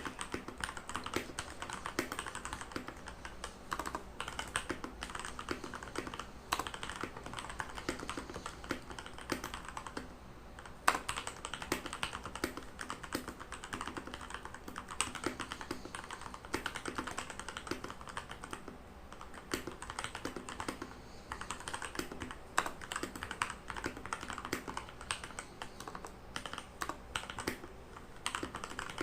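Redragon Kumara mechanical keyboard with lubed Outemu Red linear switches being typed on at a steady pace, a continuous run of key clacks. The typing pauses briefly a few times along the way.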